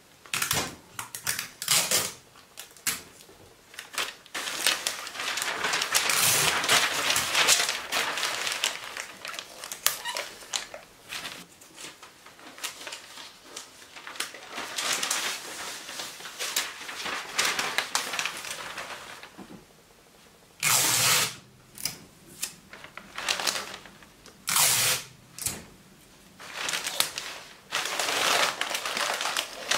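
Sheets of white newsprint packing paper crinkling and rustling as they are folded and pressed flat by hand around a large plate. The crackling is dense and continuous at first, then after a short lull breaks into separate short rasps about a second apart.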